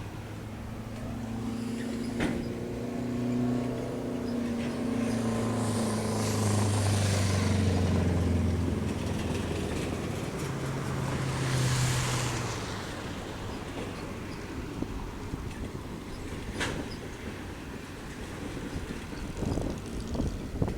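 Diesel locomotive engines of a passing train, with a low engine drone that slowly drops in pitch as it goes by. It is loudest about six to twelve seconds in, then settles to a steadier rumble with a few sharp clicks.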